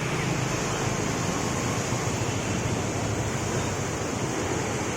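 A river in heavy flood, its fast high water rushing with a steady, even roar.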